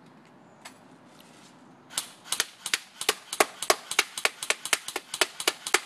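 AK-74U airsoft gun firing single shots on semi-automatic, a fast, slightly uneven run of about twenty sharp cracks at roughly five a second, starting about two seconds in.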